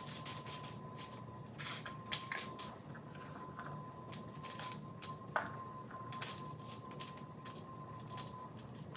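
Crisp baked potato chips rustling and clicking as they are handled in a cast iron skillet, then light ticks and scrapes as cheese crumbles are sprinkled and spooned over them. A faint steady high hum runs underneath.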